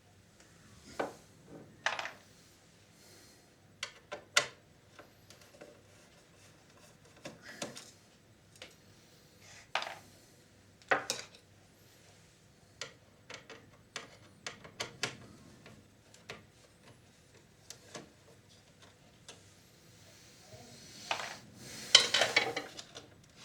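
Scattered clicks, taps and light scrapes of plastic and metal parts being handled while a VCR is taken apart to free a circuit board, with a denser burst of clattering and scraping near the end.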